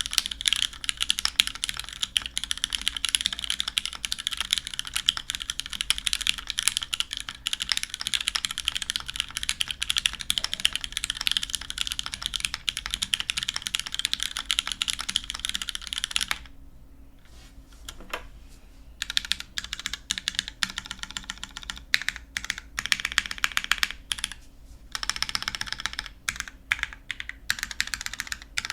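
Typing on a Merisi Dodici mechanical keyboard with lubed MX Black linear switches (63.5 g springs, films), GMK keycaps and a full aluminium plate, top-mounted: a fast, dense clack of keystrokes. A little past the middle the typing stops for about two seconds, with a single key press in the gap, then resumes in shorter runs.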